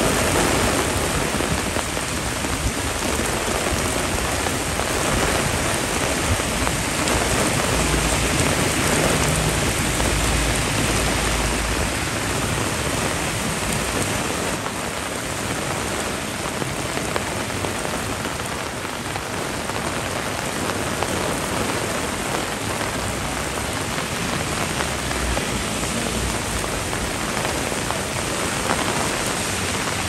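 Heavy typhoon rain pouring steadily, a dense even wash of rain noise. A low rumble comes in for a few seconds about a third of the way through.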